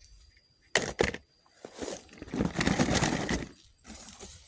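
Handling noise: two sharp knocks about a second in, then a couple of seconds of rustling and scraping.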